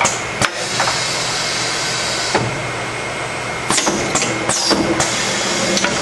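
Automated crimp-press cell for transmission synchronizer gears running through its cycle. A steady hiss lasts about two and a half seconds, and from about four seconds in come sharp mechanical clicks and clacks, some with a short falling squeal.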